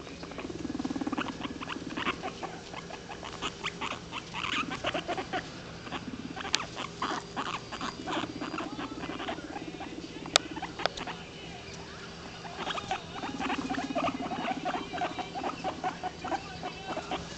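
Guinea pigs vocalizing at close range: several spells, each about a second long, of a low buzzing purr, amid rapid short squeaks and chirps. A sharp click a little past the middle.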